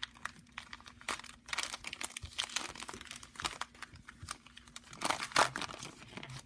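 Crinkling and tearing of a trading-card pack wrapper being torn open and handled, an irregular run of crackles that is loudest about five seconds in.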